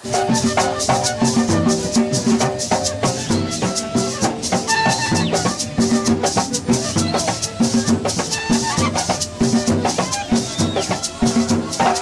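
Colombian gaita music: two gaitas, long cane duct flutes, playing a melody together over a steady fast rhythm of shaken maraca and drum.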